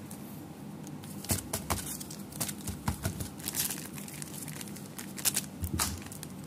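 Foil Pokémon booster-pack wrappers crinkling and crackling in the hands as the packs are picked up and torn open, an irregular run of sharp crackles starting about a second in.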